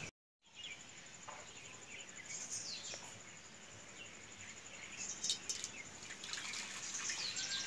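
Milk poured from a steel pot through a strainer into a steel bowl, a soft trickling splash that grows louder over the last few seconds. Birds chirp briefly a few times.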